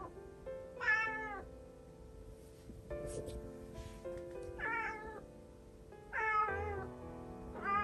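Calico cat meowing about four times, each call rising then falling, while it tries to get through a closed door to the outside. Soft background music runs under the meows.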